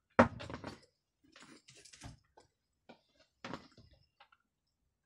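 Small workbench handling noises: a sharp click about a quarter second in, then scattered light taps and rustles as a soldering iron and a small wooden-peg-held electronic timer are worked by hand.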